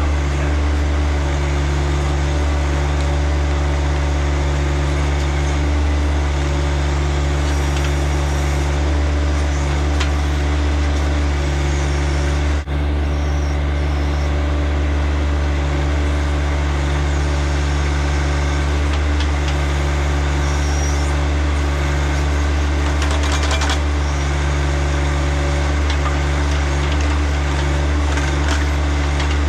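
John Deere tractor's engine running steadily while working the backhoe, with a brief break near the middle.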